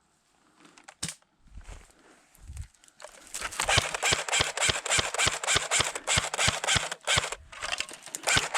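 Airsoft guns firing on full auto: a few scattered clicks, then about three seconds in a long, rapid stream of sharp shots, with a brief pause shortly before the end.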